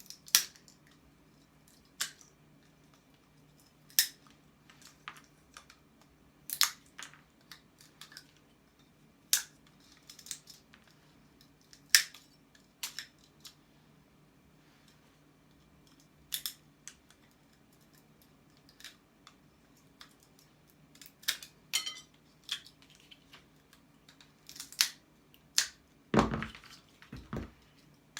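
Plastic casing cracking under squeezing as it is broken off to free copper: sharp snaps every couple of seconds, over a faint steady low hum. A heavier thump comes near the end.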